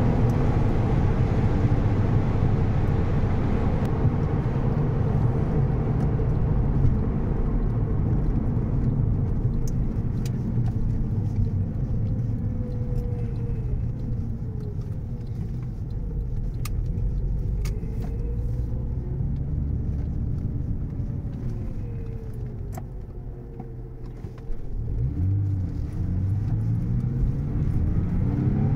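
Porsche 996 Carrera 4S's 3.6-litre flat-six engine running under way, with road noise. It eases off through the middle, dips briefly near the end, then picks up again with rising pitch as the car accelerates.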